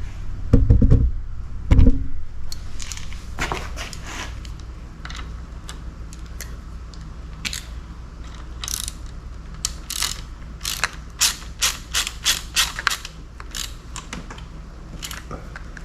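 Hand work on an outboard motor's throttle linkage: a few heavy knocks at first, then scattered sharp metallic clicks, with a quick run of them about ten to thirteen seconds in.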